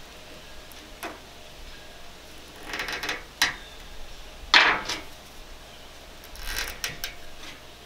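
A hand tool pressing rubber spline and screen mesh into the channel of a window screen frame: a series of short scrapes and clicks, the loudest about halfway through.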